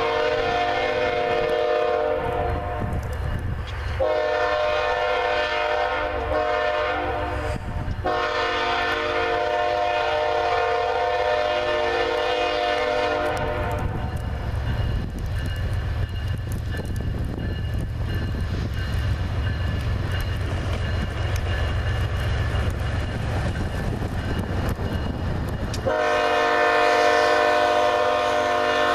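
BNSF diesel freight locomotive's multi-note air horn sounding three long blasts, the third the longest, over the low rumble of the locomotive and train. After a gap of about twelve seconds with only the rumble, the horn sounds again near the end.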